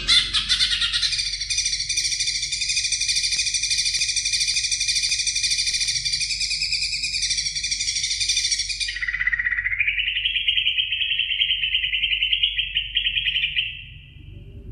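Greater green leafbird (cucak ijo) singing: a dense, rapid trill for about nine seconds, then a lower warbling phrase that rises in pitch and stops shortly before the end.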